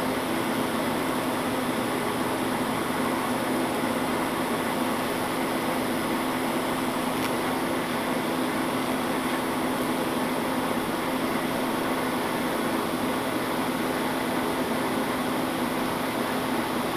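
TIG welding arc brazing a crack in a cast iron part with silicon bronze filler rod: a steady buzzing hiss with a constant low hum, as the arc heats the cast iron so the bronze rod will flow in.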